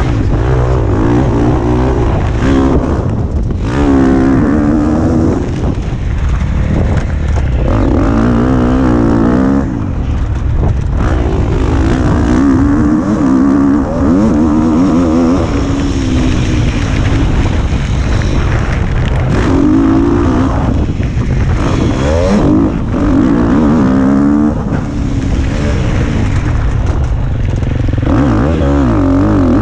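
KTM motocross bike engine revving hard and dropping back again and again as the rider accelerates, shifts and rolls off around the track. Heavy wind buffets the helmet-mounted microphone underneath.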